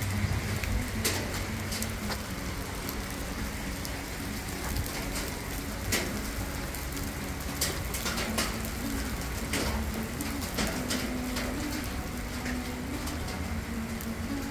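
A rain shower with small hail, with scattered sharp ticks of hailstones and drops striking surfaces over a steady hiss of rain.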